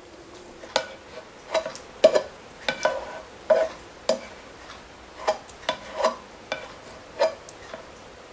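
Black slotted spoon scraping and knocking against a frying pan tipped over a slow cooker, pushing browned ground beef and onion off the pan: about a dozen sharp, uneven knocks, roughly one or two a second.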